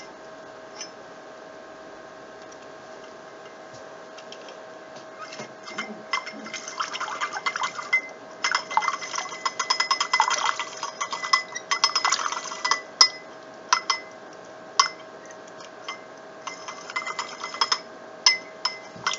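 Plastic LEGO Technic gears and beams clicking and rattling in quick clusters as the hand-turned mixer spins its beater in a cup of water. The clatter starts about five seconds in, thins to scattered single clicks, then picks up again briefly near the end, over a faint steady hum.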